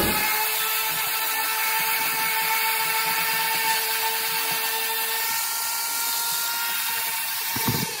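Corded random orbital sander running steadily against a curved metal motorcycle part, with a constant motor whine over the rasp of the pad on bare metal.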